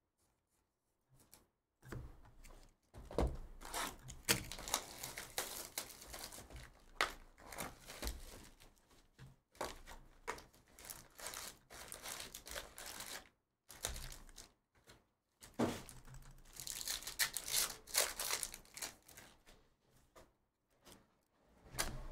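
Baseball card box and packs being torn open and handled: cardboard, paper and wrapper tearing and crinkling in irregular bursts, with a couple of brief pauses.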